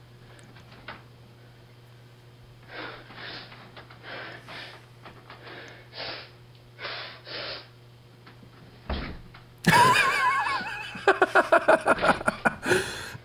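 Teenage boy panting and gasping hard after a screaming tantrum, in a run of short, faint breaths. About ten seconds in, two men start laughing loudly, in quick rapid bursts.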